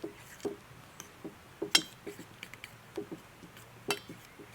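A few light, irregularly spaced clinks and taps of kitchen utensils against a dish.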